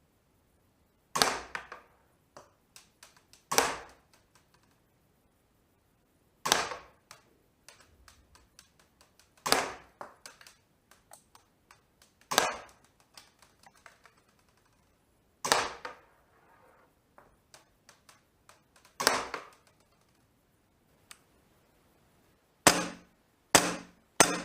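KWC P226 CO2 blowback airsoft pistol firing single shots, about ten in all, each a sharp crack with light ticks after it. The shots are spaced a few seconds apart, and the last three come in quick succession near the end.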